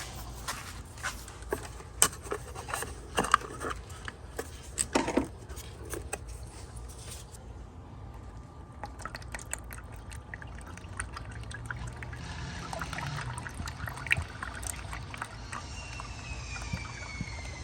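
Motor oil pouring from a 5-quart jug through a funnel into the engine's oil filler, a steady liquid pour. A few clicks and knocks from handling the jug and funnel in the first six seconds or so.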